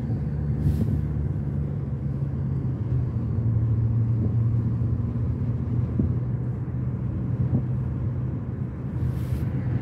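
Car driving at road speed, heard from inside the cabin: a steady low drone of engine and tyre noise, with a couple of faint knocks around the middle.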